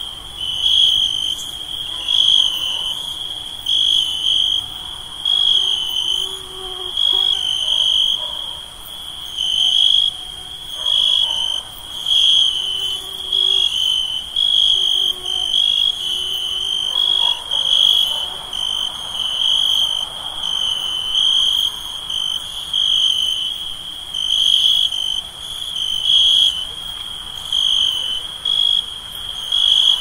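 Night insects: crickets chirping in a steady pulsing rhythm about once a second, over a continuous, higher-pitched insect trill.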